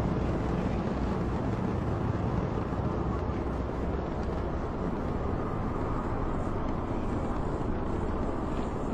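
Steady, even rumbling noise of an aircraft cabin in flight.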